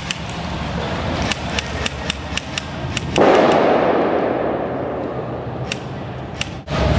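Airsoft guns firing single shots, sharp clicks about three a second. About three seconds in, a loud noise bursts in suddenly and fades away over the next three seconds while the shots go on, fewer now.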